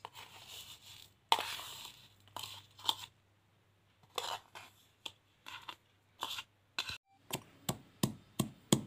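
Scraping and rustling as ingredients are moved into a stone mortar, then, about seven seconds in, a stone pestle starts pounding salt and ginger in the stone mortar with sharp, regular knocks about three a second.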